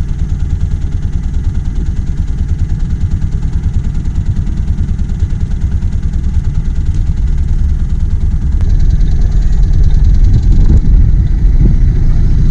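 Sailboat's inboard engine running under way, with an even beat, getting louder about nine seconds in.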